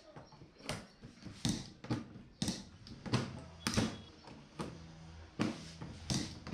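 Repeated sharp clicks and knocks at an uneven pace, roughly one or two a second, from hand work fitting a number plate into its frame.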